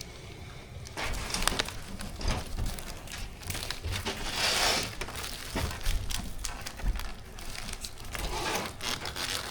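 Plastic packaging crinkling and rustling, with small clicks and knocks from kit parts being handled, starting about a second in; a longer rustle comes around the middle.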